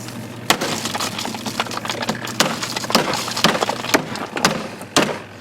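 Plastic casing of a small RV washing machine cracking and splintering as it is pried apart with a hammer: a run of irregular crackles with several sharper snaps.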